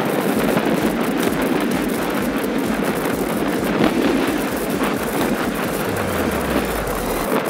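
Steady wind rushing over the microphone of a camera on a moving bicycle, mixed with the rumble of the ride.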